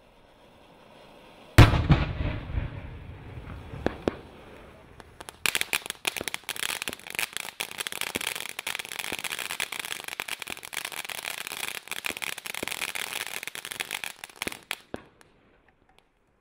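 Ground fountain firework hissing as it sprays sparks, with a single loud bang about a second and a half in. From about five seconds in, a dense, rapid crackling of crackling stars runs on, thins out and stops shortly before the end as the fountain burns out.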